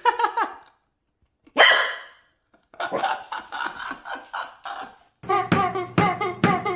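A corgi puppy barking in short separate yelps at a rubber chicken toy. From about five seconds in, rhythmic music with a steady strummed beat takes over.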